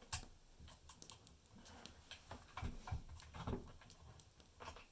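Quiet, irregular clicks and knocks from hands handling a chainsaw while fitting a new chain and refitting its side cover.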